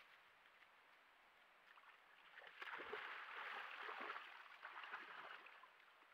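Black bears wading and splashing in a shallow pool, the water sloshing for about three seconds in the middle.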